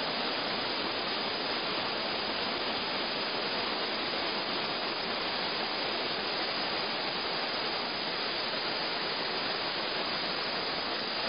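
Steady rushing of whitewater river rapids, an even unbroken roar of water.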